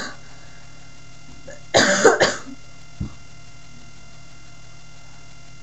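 A person's dry cough: a quick fit of about three coughs a little under two seconds in, then a smaller single cough about a second later. The cough comes with a voice that is giving out.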